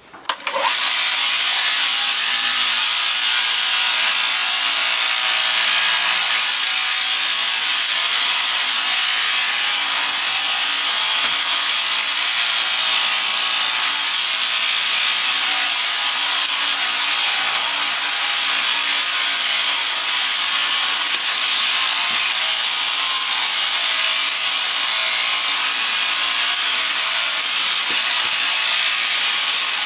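Overhead-drive sheep shearing handpiece starting up about half a second in, then running steadily with its cutter oscillating across the comb as it shears through a ram's fleece.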